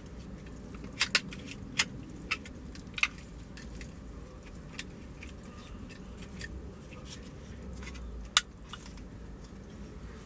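Scattered sharp plastic clicks and taps as the window switch and its trim piece are pressed and wiggled into the door panel, loudest in a cluster about a second in and once near the end; the clips are not yet seating.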